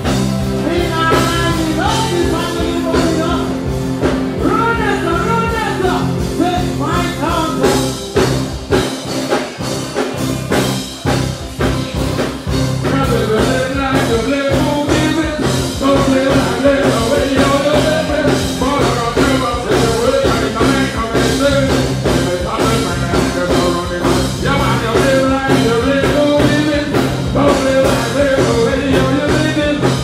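Live band music with a vocalist singing over it; the bass drops out briefly about nine seconds in.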